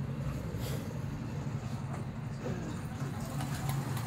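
A motor vehicle engine idling steadily, a constant low hum, with a few faint light ticks over it.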